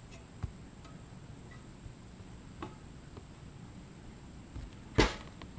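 Faint scattered ticks, then a single sharp hammer blow on a roofing nail about five seconds in.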